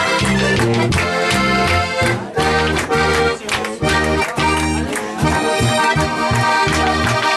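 Live Alpine folk-pop band music led by a Styrian button accordion (Steirische Harmonika), over strong bass notes and a steady drum beat.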